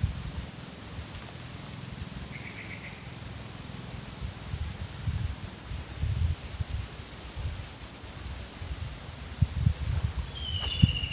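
Insects chirring outdoors in a steady, high-pitched pulsing trill, over uneven low rumbling gusts of wind on the microphone. A brief falling call comes near the end.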